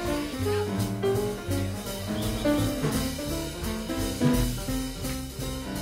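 Jazz-style background music with a drum kit keeping a steady beat under shifting melody notes.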